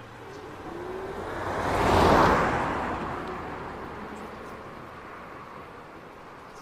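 A vehicle passing close by: a rush of noise that swells to a peak about two seconds in, then fades away slowly.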